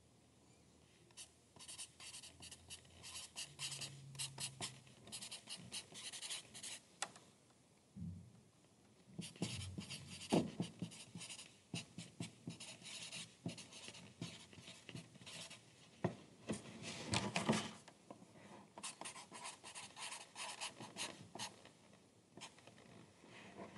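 Pencil writing on paper: faint scratchy strokes in runs of a few seconds, with short pauses between.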